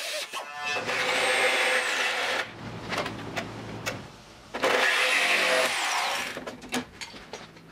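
Power tools cutting old sheet metal off a car body: two bursts of a high-speed cutting tool, each about a second and a half, its high whine dropping as it winds down at the end. Between them is a quieter spell of cutting, and a few sharp metal clinks come near the end.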